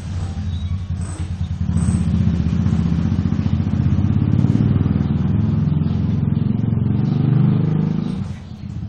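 An engine running steadily nearby with a fast, low pulsing throb, easing off briefly near the end.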